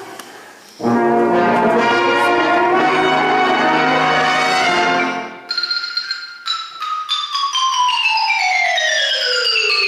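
A brass band plays a loud, held opening chord for about four seconds, then xylophones take over with quick struck notes in a line that falls steadily in pitch.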